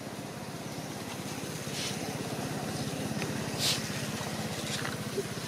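An engine running steadily, growing a little louder about two seconds in, with a couple of short rustles over it.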